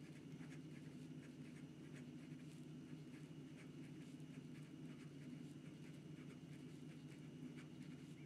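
Conklin Duragraph fountain pen's medium steel nib scratching across notebook paper in quick, faint strokes, several a second, over a steady low hum.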